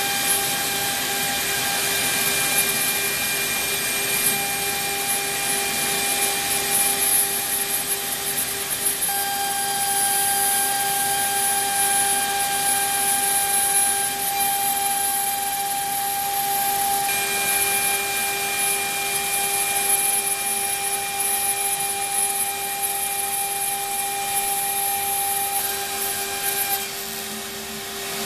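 CNC router spindle running and cutting through MDF: a steady whine with a high cutting hiss, over the steady run of the Ridgid 16-gallon shop vacuum holding the part down. The cutting hiss stops and the sound dips near the end as the pass finishes.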